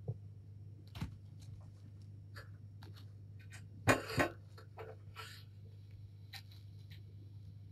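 Kittens playing on the floor of a pen: scattered scratches, rustles and light taps, with two louder thumps close together about four seconds in, over a steady low hum.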